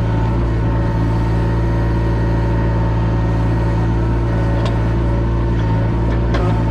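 Bobcat E20 mini excavator's diesel engine running steadily under work, with a few faint metallic clicks about two thirds of the way through and near the end.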